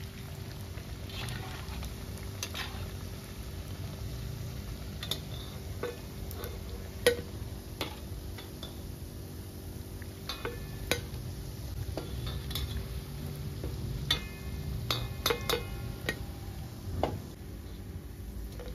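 Vadas deep-frying in hot oil in a hammered brass kadhai, sizzling steadily, with scattered clinks and taps from a metal slotted spoon against the pan and a ceramic plate as the vadas are lifted out and set down. A cluster of ringing clinks comes later on.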